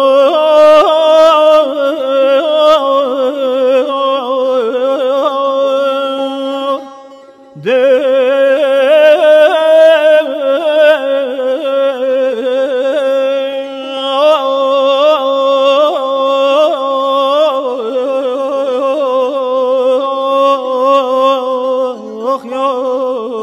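Solo singing in long, heavily ornamented phrases with a fast wavering pitch, over a steady held drone. The voice breaks off about seven seconds in, then returns with a second long phrase.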